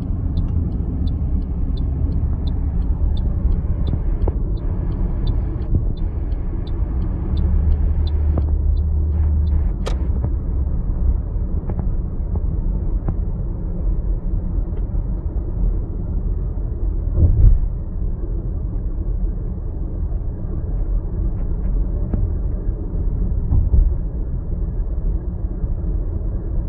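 Car interior road noise while driving: a steady low rumble of engine and tyres, with a turn-signal indicator ticking about twice a second for the first nine seconds or so. A sharp click comes about ten seconds in, and a couple of low thumps follow later.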